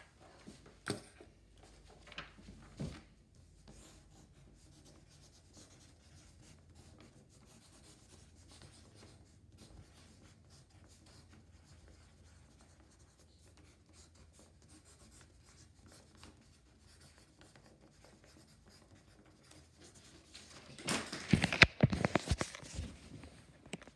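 Faint room tone with a few soft knocks. About 21 seconds in comes a loud burst of rubbing, scraping and knocks as the recording phone or camera is picked up and handled against the microphone.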